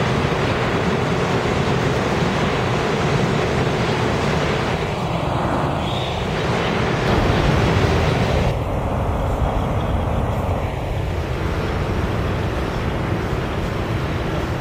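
New York City subway trains running through underground stations: a steady rush of wheel and rail noise with a slow phasing sweep as a train passes. The sound changes abruptly about eight and a half seconds in, where a second passing train takes over.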